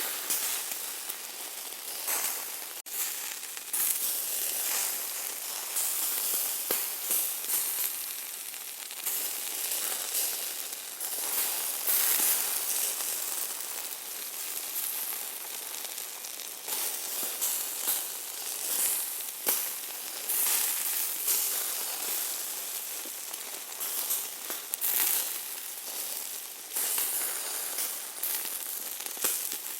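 Hamburger meat sizzling as it cooks: a steady high hiss crowded with crackles and pops that swells and ebbs every few seconds, with a split-second break a little under three seconds in.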